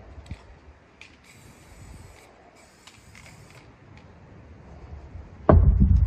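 Two short hissing bursts of an aerosol spray-paint can, each about a second long, then a sudden loud, low thump and rumble about five and a half seconds in.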